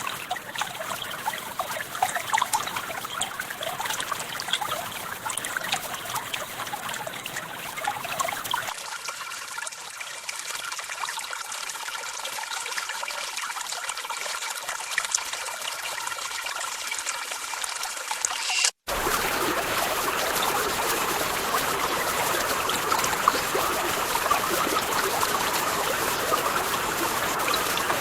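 Water running in a small mountain stream, a steady rushing trickle. The sound changes abruptly twice: about a third of the way in it becomes thinner with little low end, and just before two-thirds in it cuts out for an instant and comes back fuller and louder.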